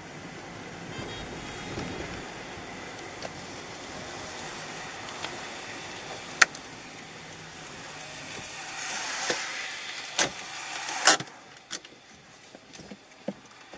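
A car driving on a wet road, heard from inside the cabin: a steady hiss of tyres on wet pavement that swells for a few seconds past the middle. A few sharp clicks or knocks cut through it; the loudest comes about eleven seconds in.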